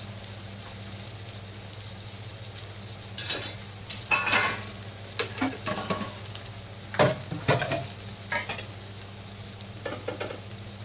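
Paneer tikka cubes frying in butter in a hot nonstick pan: a steady low sizzle broken by irregular sharp crackles and pops.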